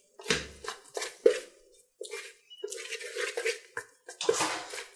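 Wire dough whisk scraping and knocking against the inside of a plastic mixing bowl as it stirs a very stiff flour-and-water sourdough starter, in irregular taps and scraping strokes.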